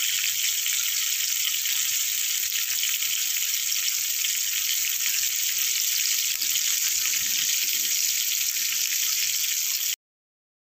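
A whole fish shallow-frying in hot oil in a small pan, a steady crackling sizzle that cuts off suddenly near the end.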